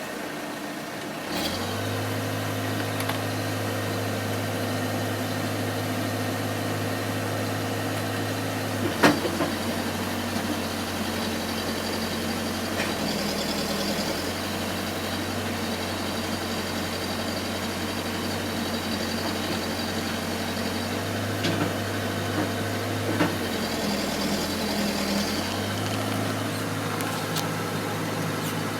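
Case backhoe's diesel engine running steadily. Its note steps up about a second and a half in, changes just after a sharp clack about nine seconds in, dips briefly, and rises again near the end.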